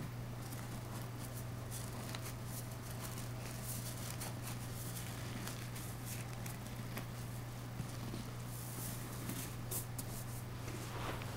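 Steady low hum under faint, scattered rustles and light clicks of hands handling things at close range. The rustling gets busier near the end.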